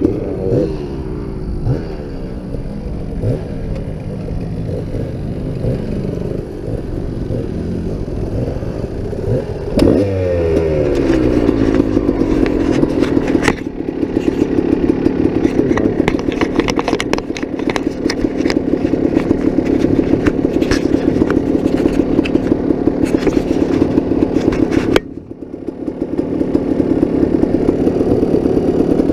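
1997 Kawasaki KDX220's two-stroke single-cylinder engine revving up and down under way on a dirt trail, with many knocks and rattles from the bike. Near the end the throttle is shut briefly, then the revs build again.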